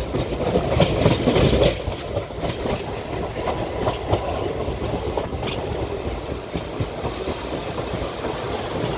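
Indian Railways express passenger train running, heard from on board: a steady rumble of the coach wheels on the rails with clickety-clack over the rail joints, louder for the first couple of seconds.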